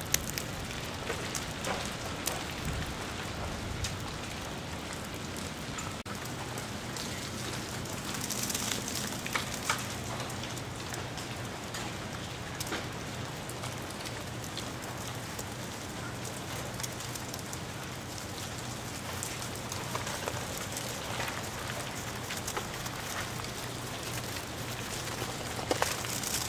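Ice shedding from ice-coated tree branches as it thaws: a steady rain-like patter of many small ticks as pieces fall onto snow and roofs, with heavier showers about eight to ten seconds in and again near the end.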